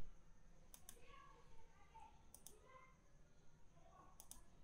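Near silence with faint computer mouse clicks: three pairs of clicks about a second and a half apart.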